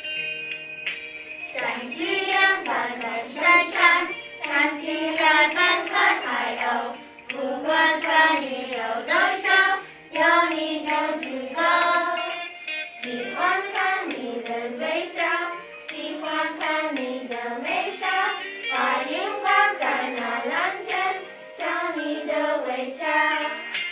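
Group of children singing a song together. The singing comes in about a second and a half in, after a few held instrumental notes.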